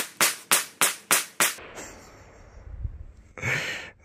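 Rapid gunfire, six sharp shots about a third of a second apart, then a shorter noise near the end.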